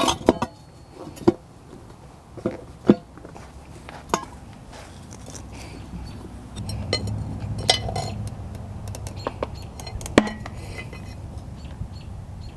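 Metal tire spoons clinking and knocking against a motorcycle wheel rim as the second bead of a new tire is levered on, about eight sharp knocks at irregular intervals. A low steady rumble comes in about halfway.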